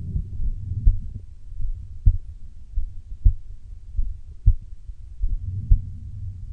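A girl's heartbeat heard through a stethoscope: regular low thuds, a little slower than one per second, over a steady low rumble.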